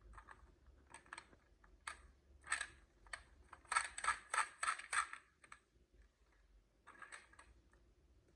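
Glass marbles clicking and rattling down a wooden marble run in irregular taps, with a busier run of clacks in the middle and a few more near the end.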